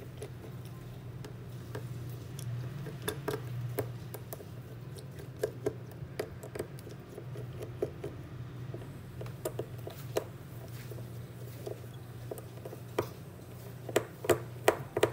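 Small hard clicks and taps of tools and parts being handled during phone repair work, scattered over a steady low hum, with a quick run of sharper, louder clicks near the end.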